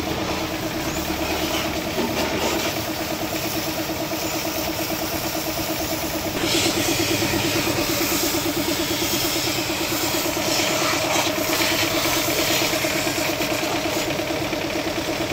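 A small motor, the washer pump, hums steadily with a fast pulse. From about six and a half seconds in, a jet of water from a hose hisses as it sprays onto a motorcycle.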